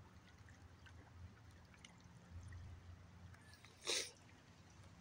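Faint water lapping and trickling at the river's edge, with one brief, louder whoosh about four seconds in.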